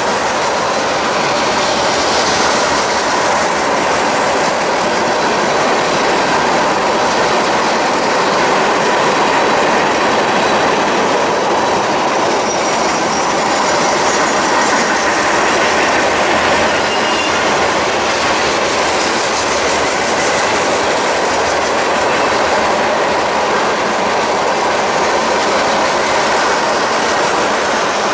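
Railroad cars rolling steadily past close by, a loud continuous rumble and clatter of steel wheels on the rails, with faint wheel squeal partway through.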